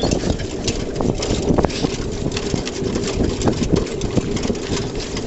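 Steady rumble and rattle of a pony-drawn chariot rolling over grass, its wheels and frame knocking and clicking continuously.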